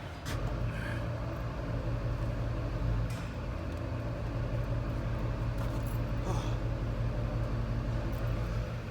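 A motor vehicle engine running with a steady low hum. A few clicks and knocks come as a tight intake hose is worked loose by hand.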